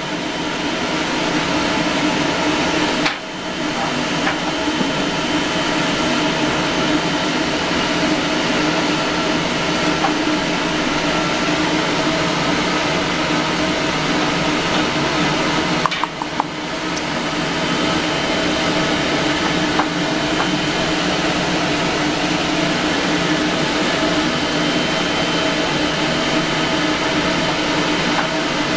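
A steady machine drone from a running motor, carrying several held tones. It dips briefly about three seconds in and again about sixteen seconds in.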